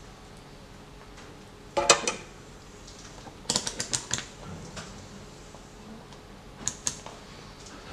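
A soldering iron set down with a short ringing clatter about two seconds in, then a quick run of clicks as a digital multimeter's rotary dial is turned to its resistance range and its test leads are handled, with two more clicks near the end.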